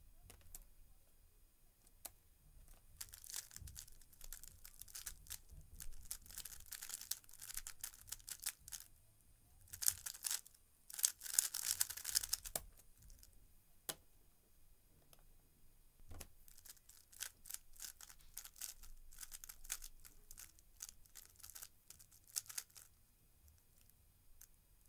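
A 3x3 speedcube being turned fast through a solve of just under ten seconds: rapid clicking and rattling of the plastic layers, thickest and loudest near the end of the solve. A single sharp click follows, then after a pause a second, looser run of turning clicks as the cube is scrambled again.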